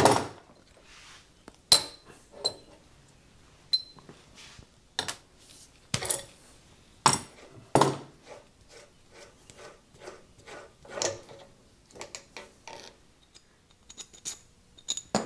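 Irregular metal-on-metal clinks and knocks as a South Bend lathe tailstock is taken apart, with its handwheel, screw and ram being handled and set down. A few clinks ring briefly.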